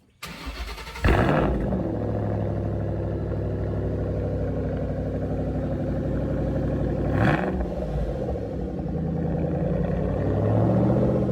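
2009 Ford Shelby Mustang GT500KR's supercharged V8 cold-starting through an aftermarket exhaust: the starter cranks briefly, the engine catches about a second in with a loud flare of revs, then settles into a steady, deep idle. One quick blip of the throttle rises and falls about seven seconds in.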